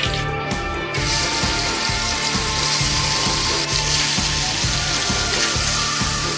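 Thin slices of raw meat sizzling in hot oil in a metal pan, the sizzle starting abruptly about a second in, over background music with a steady beat.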